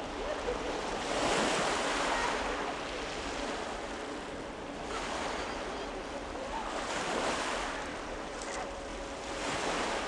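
Sea waves breaking and washing over a pebble beach, the surf swelling and falling back four times.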